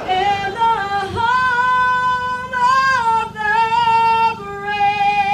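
A woman singing into a microphone, holding long notes that step from one pitch to the next.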